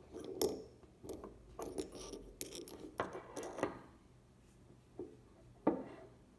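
Clicks, clinks and knocks of a wooden pepper mill's metal grinder parts being handled and taken apart on a wooden table, busy and rattly for the first few seconds, then a couple of separate knocks near the end.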